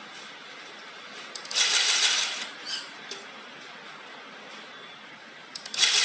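Handheld wire harness spot-taping machine running in a short burst of about a second, its rotating head wrapping a spot of tape around a wire harness, about one and a half seconds in. A few light clicks follow, and a second burst starts near the end.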